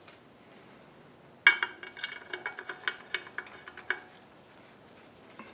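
Metal hardware clinking and rattling: a quick, irregular run of metallic clinks with a ringing tone, starting about one and a half seconds in and lasting a couple of seconds, as bolts and tools are handled while the engine's rear seal plate is bolted on.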